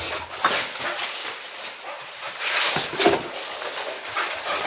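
English cocker spaniel making a run of short, irregular whines and small noises close by.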